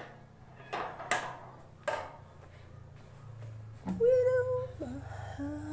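A person's voice singing two long held notes, the first higher and sliding down into a lower one, after a few short rustling noises.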